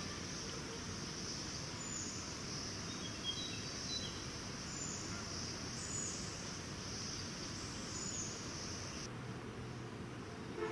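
Rainforest insects keep up a steady high-pitched chorus, with a few short bird chirps in the first half. The insect chorus cuts off abruptly about nine seconds in.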